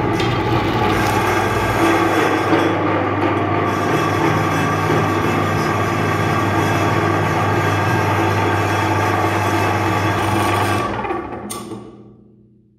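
Electric meat grinder running steadily, its motor humming while the auger grinds hollow chocolate eggs with a rough rasping sound. About eleven seconds in the motor is switched off and the noise dies away as it runs down.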